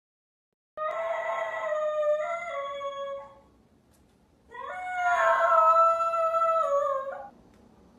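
Golden retriever puppy howling twice, two long calls that each step down in pitch, sounding like a rooster's crow.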